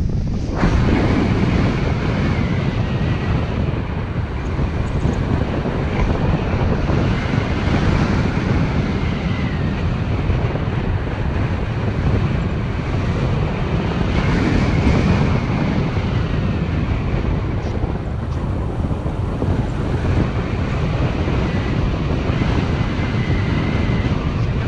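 Steady wind rushing over the microphone of a paraglider in flight. A faint high tone comes and goes a few times.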